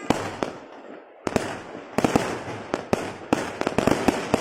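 Fireworks going off: a run of sharp bangs over crackling, with a short lull about a second in, then bangs coming thick and fast toward the end.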